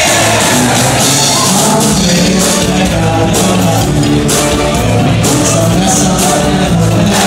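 Loud dance music with a singer and a steady beat.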